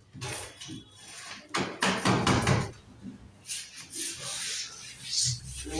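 Wooden boards knocking and scraping as they are handled during wardrobe carpentry: a few sharp knocks, a louder rough scrape about two seconds in, and a hissing rub near the end.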